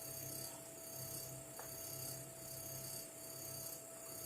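Steady electrical hum with a faint high hiss that swells and fades about every three-quarters of a second, and one faint click about one and a half seconds in.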